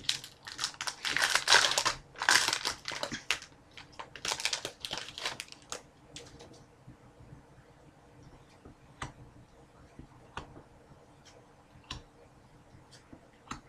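Foil trading-card pack wrapper being torn and crinkled in several loud bursts over the first six seconds, followed by only occasional faint clicks.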